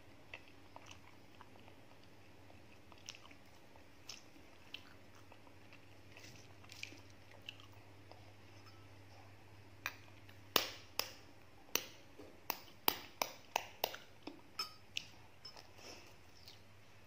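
Faint wet chewing clicks, then about a dozen sharp clicks over some six seconds as a boiled duck egg (balut) is knocked against another duck egg to crack its shell.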